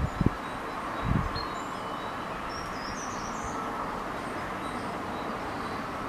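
Outdoor ambience: a steady background hiss with a short burst of distant bird chirps about two and a half seconds in, and a couple of low thumps in the first second or so.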